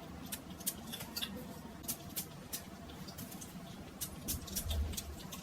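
Hands rubbing in hand sanitizer gel, making faint, irregular sticky clicks and squishes as the gel dries.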